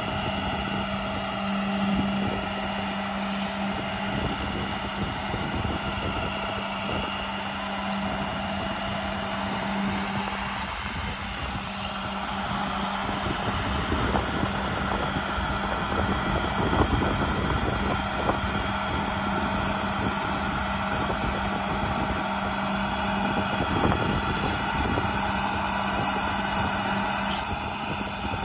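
Truck diesel engine running steadily, a constant drone with a low hum, driving the Elliott sign crane's hydraulics as the boom raises the basket. It gets a little louder about halfway through.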